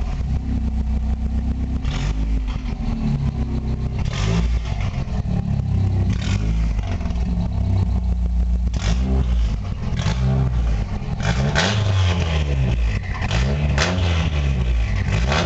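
Mazda 323 GTR's turbocharged 1.8-litre four-cylinder engine idling, then revved in short blips, the revs rising and falling twice about nine seconds in and several more times near the end.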